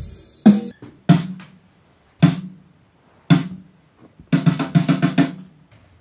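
Snare drum being struck for a sound check: single hits about a second apart, then a quick run of hits near the end, each with a short ringing decay.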